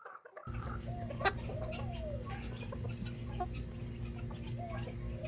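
Chickens clucking: a couple of rising-and-falling calls, each about a second long, over a steady low hum, with a sharp click about a second in.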